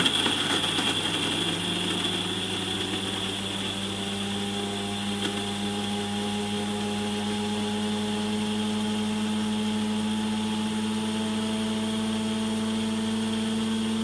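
The built-in coffee bean grinder of a Russell Hobbs Chester Grind & Brew coffee machine grinding a load of whole beans before brewing. Its motor runs steadily with a constant hum, rising slightly in pitch over the first couple of seconds and then holding.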